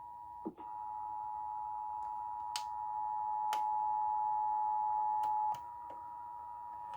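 Emergency Alert System attention signal: a steady two-tone alert tone, with a few faint clicks over it. It drops in level about five and a half seconds in.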